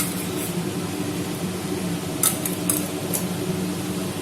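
Steady hum of a kitchen fan under a light hiss, with a few light metallic clinks of a spoon on a tempering ladle about two to three seconds in, as ghee is spooned in.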